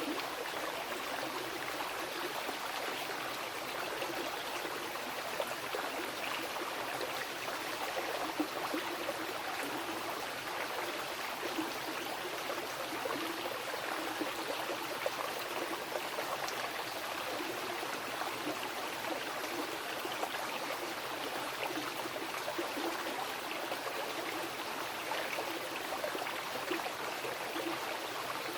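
A mountain river running over rocks: a steady rushing flow with small splashes and gurgles all through.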